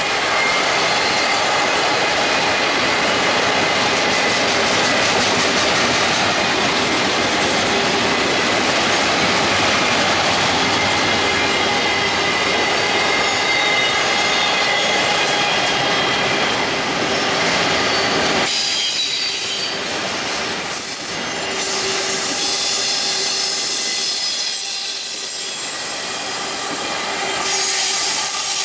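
Double-stack intermodal freight cars rolling past close by, their wheels rumbling on the rails with a steady high-pitched squeal. The low rumble drops away about two-thirds of the way in. Near the end, the sound swells as a diesel locomotive comes by.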